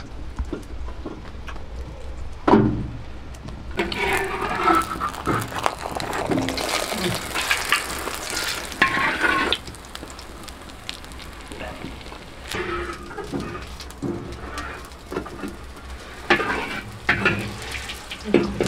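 Flatbread frying in oil in a wide black iron pan, sizzling, with a metal spatula scraping and knocking against the pan now and then.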